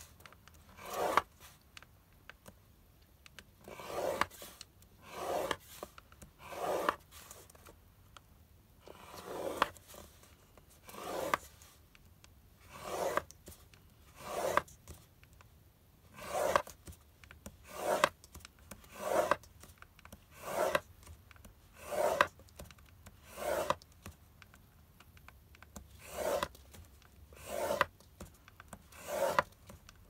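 Scoring stylus drawn along the grooves of a paper-craft scoreboard through cardstock, one stroke every one to two seconds with a few short pauses. Each stroke grows louder and then stops. Scoring every row like this crimps the cardstock, standing in for a paper crimper.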